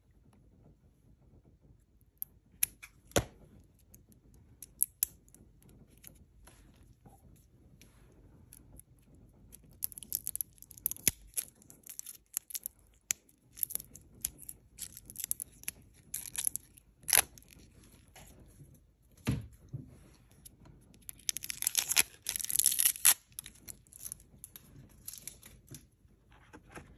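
Plastic shrink-wrap being snipped and then peeled and torn off an oil stick by hand: a couple of sharp clicks from small spring-loaded snips about three seconds in, then crinkling, tearing rustles in several bursts, loudest near the end.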